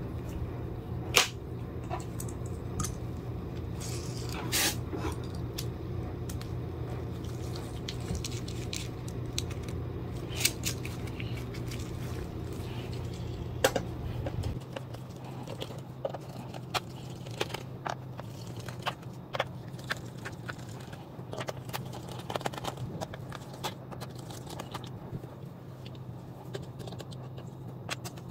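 Small metal clicks and scrapes of a screwdriver backing screws out of a laptop's bottom panel, with the loose screws set down now and then. A steady low hum underneath cuts off about halfway through.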